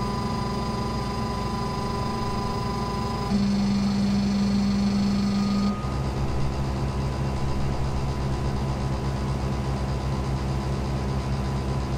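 Shapeoko 3 CNC stepper motors whining steadily as the machine runs its automatic X, Y, Z touch-probe cycle. The pitch changes abruptly with each new move, about three seconds in and again about six seconds in.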